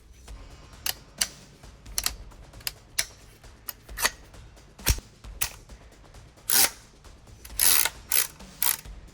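A string of sharp mechanical clicks and clacks at uneven intervals, with two longer rasping slides about six and a half and seven and a half seconds in: hands working the parts and attachments of an airsoft rifle.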